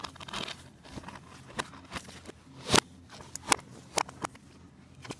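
Plastic DVD cases being handled and shuffled, making scattered light clicks and taps. The sharpest click comes a little under three seconds in.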